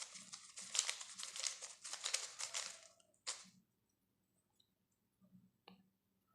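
3x3 Rubik's cube layers being turned by hand: a quick run of plastic clicking and rattling for about three seconds, then one sharper click and a few faint clicks near the end.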